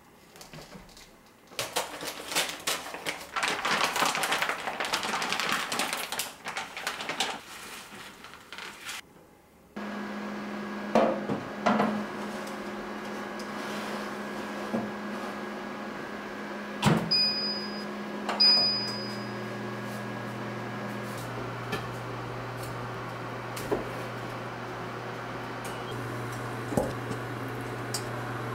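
Plastic wrapping crinkling and rustling as a whole turkey is taken out of its bag. Then an oven is loaded with a few knocks and gives two short high beeps. It runs with a steady hum that drops in pitch partway through.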